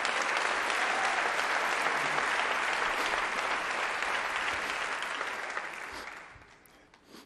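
Large theatre audience applauding, the applause dying away near the end.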